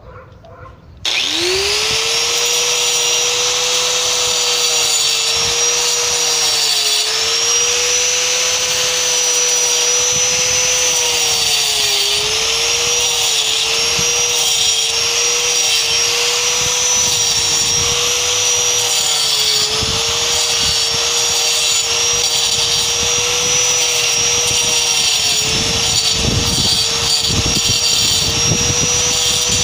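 720 W Black+Decker angle grinder switched on about a second in, quickly spinning up to speed, then cutting into the mortar joint between concrete blocks. Its motor pitch dips several times as the disc bites under load and recovers in between, over a loud high grinding hiss and whine.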